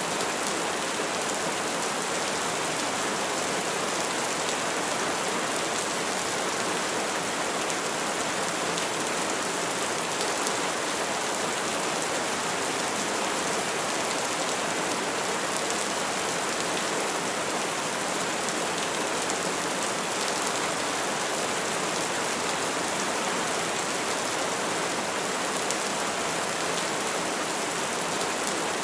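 Steady rain falling: an even, unbroken hiss of drops, with no thunder.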